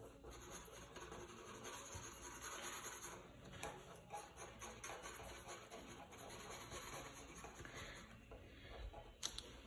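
Faint scratching of a black felt-tip marker rubbed back and forth on paper while colouring in, with a light click near the end.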